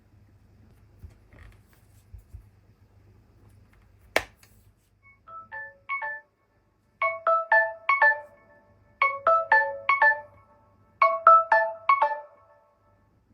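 Samsung Galaxy Z Flip 7 countdown timer alert going off through the phone's speaker, a marimba-like chime. It comes in softly and grows louder, then repeats as groups of four quick notes about every two seconds. A sharp click comes about a second before it starts.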